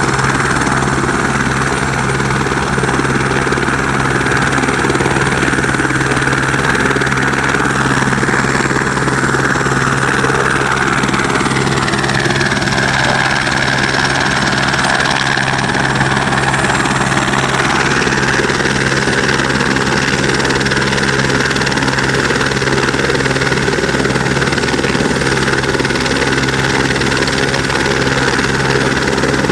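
Helicopter running on the ground with its rotor turning: a loud, steady turbine whine over the low drone of the rotor, the whine rising slightly in pitch about twelve seconds in.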